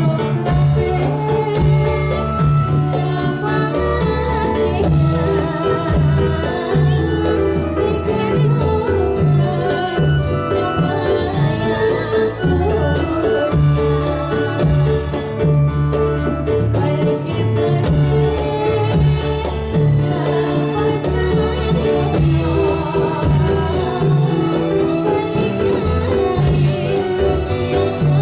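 Javanese Dolalak folk music: tambourine jingles and hand drums keep a steady, driving beat over deep drum strokes, with singing on top.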